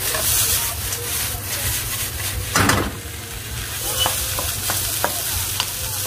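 Julienned christophene and carrots sizzling in a hot nonstick wok on a gas burner while being tossed and stirred with a wooden spoon. The sizzle is steady, with one louder swish about two and a half seconds in and a few light clicks of the spoon against the pan near the end.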